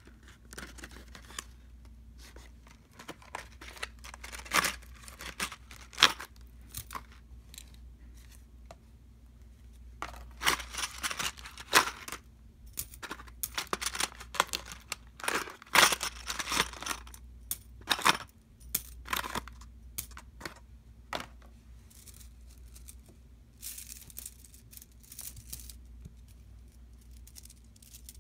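Clear plastic packaging crinkling and tearing in bursts as it is pulled open by hand, with small metallic clicks of beaded shower curtain hooks being handled and set down.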